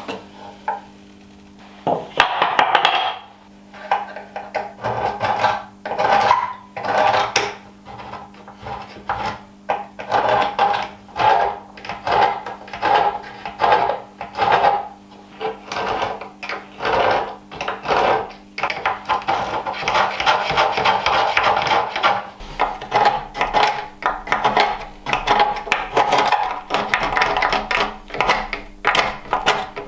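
A hand tool worked back and forth on oak in repeated strokes, roughly one to two a second, over a faint steady hum.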